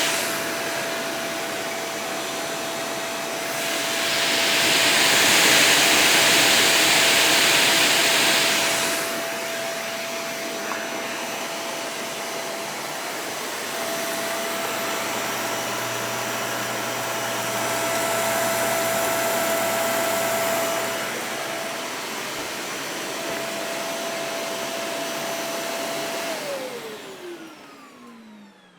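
Vacuum cleaner running close up: a steady motor whine over rushing air, louder for a few seconds near the start and again in the middle. Near the end it is switched off, and the whine falls in pitch as the motor spins down.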